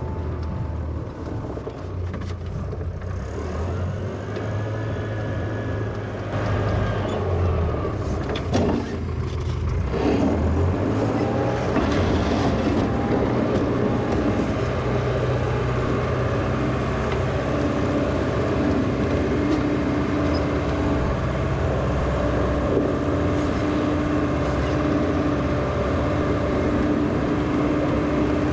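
Engine of a 1963 Volvo LM225 wheel loader running steadily, getting louder about six and again ten seconds in, with a couple of short knocks in between.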